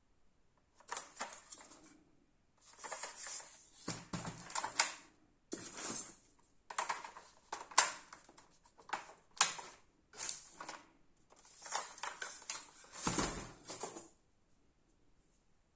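Franchi SAS12 airsoft shotgun being handled, in bouts of clicks, rattles and scraping of plastic and metal parts, with a few sharper clicks midway.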